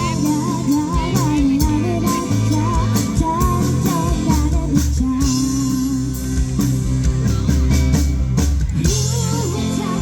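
Live band playing a pop ballad: drum kit, bass and guitar, with a wavering lead melody line full of vibrato and bends over them.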